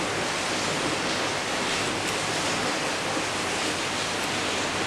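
A steady, even hiss with no distinct knocks or snaps standing out.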